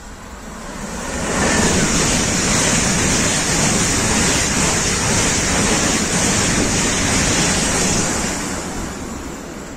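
An ICE high-speed electric train rushing past at speed: a steady rushing of wheels and air that swells over the first second or so, stays loud, and eases slightly near the end.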